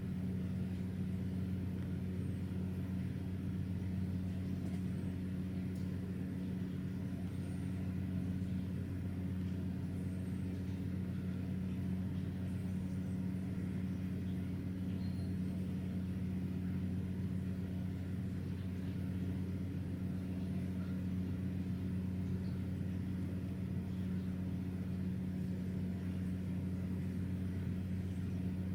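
A steady low mechanical hum, even in level and pitch.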